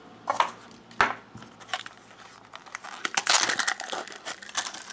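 Plastic packaging crinkling and rustling as it is handled, with a couple of sharp clicks of small plastic pieces early on and denser crinkling from about three seconds in.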